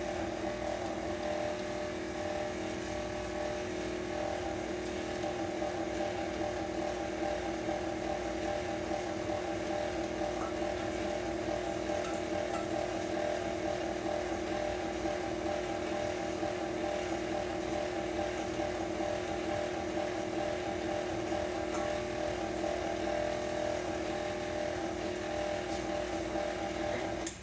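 Electric stand mixer running at a constant speed, a steady motor hum as it beats cake batter in a steel bowl. It is switched off at the very end.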